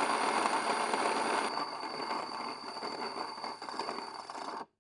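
Electric grain mill running as it grinds grain into flour: a steady coarse rushing noise with a held high whine. It drops quieter about a second and a half in and cuts off suddenly near the end.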